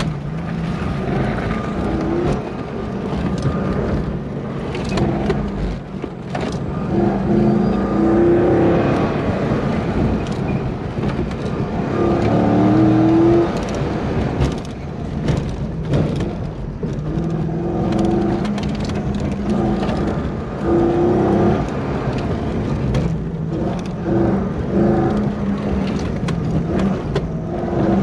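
C5 Corvette's 5.7-litre V8 heard from inside the cabin during an autocross run, revving up and dropping back again and again as the car accelerates and slows between cones.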